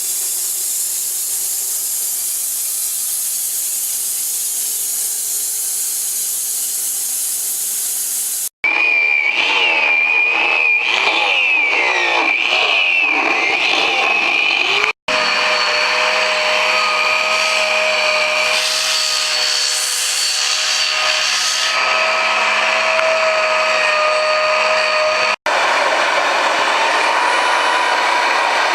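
Woodworking power tools running in several cut-together clips. It opens with a steady high hiss, then a motor whines with shifting pitch, then holds a steady whine, and a rougher grinding noise comes in near the end.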